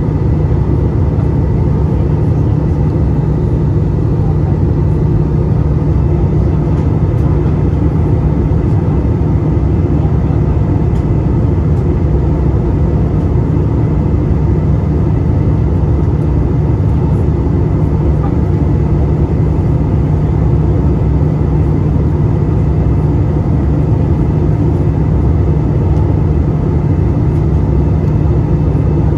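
Steady low rumble of airflow and engines inside the cabin of an Airbus A320-214 in flight, with a faint steady whine above it.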